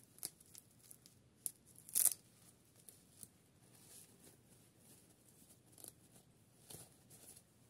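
Fingers unfastening and pulling off a mini doll's small fabric dress: soft rustling and light clicks, with one short, louder rasp about two seconds in.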